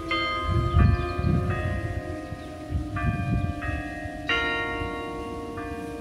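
Carillon playing a slow melody: bell notes struck one after another, about seven in all, some sounding together, each ringing on under the next. Low rumbles of wind on the microphone come and go.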